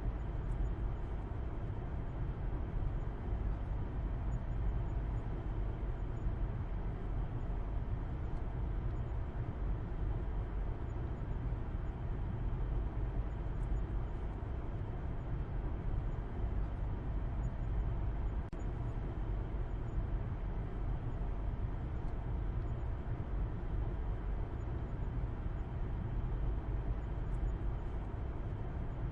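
Car driving at a steady speed: an even low rumble of engine and road noise, with no changes in pitch or level.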